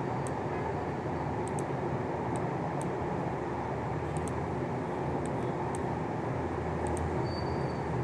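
Steady, even background hum with no rhythm. Faint, very short high ticks come every second or so, often in pairs, and a brief faint high tone sounds near the end.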